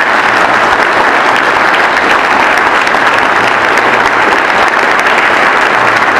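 Audience applauding steadily, with dense, even clapping.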